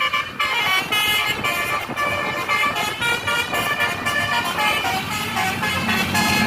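Tour bus's telolet horn, a multi-tone air horn, playing a quick string of changing notes with short breaks between them, like a tune. A low steady tone joins near the end.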